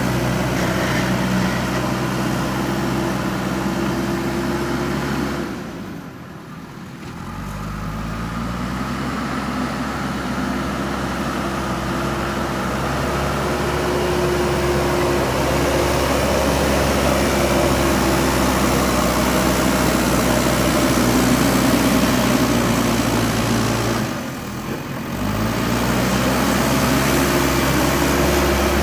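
JCB 3DX backhoe loader's diesel engine running steadily. Twice, about six seconds in and again about four seconds before the end, the sound drops away briefly and then comes back with the engine pitch rising.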